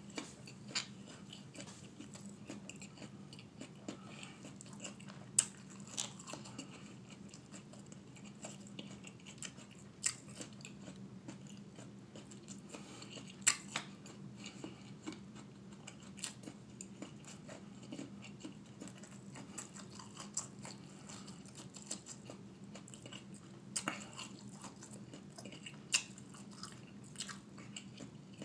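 Close chewing of crisp apple slices coated in mustard, with scattered sharp crunches as pieces are bitten, the loudest three about 5, 13 and 26 seconds in. A steady low hum runs underneath.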